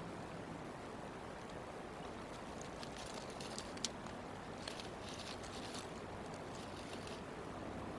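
Bald eagles rearranging nest material: dry sticks and grass crackle and rustle in bursts from about three to seven seconds in, with one sharp snap just before four seconds. Under it runs a steady outdoor rumble.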